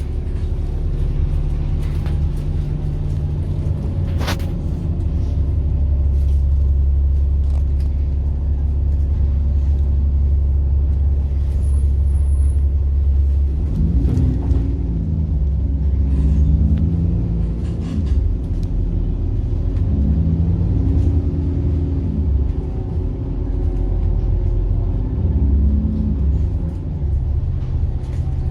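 Bus engine heard on board: a steady low drone at first, then from about halfway the engine note rises and steps through changing pitches as the bus pulls away and accelerates. A sharp click comes at about four seconds.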